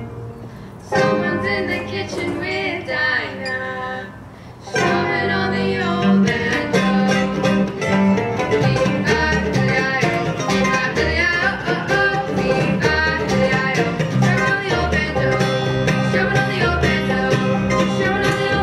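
Acoustic bluegrass band playing live: fiddle, acoustic guitar, mandolin and upright bass. A thinner passage with sliding notes opens, then the full band comes back in about five seconds in with a steady bass beat under plucked strings.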